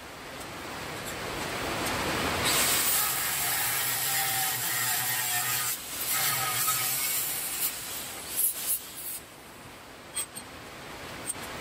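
Makita angle grinder with a thin cut-off disc cutting through steel flat bar. It winds up over the first couple of seconds, whines steadily through the cut with a short break near the middle, then dies away. A few sharp metal clanks come about two-thirds of the way in.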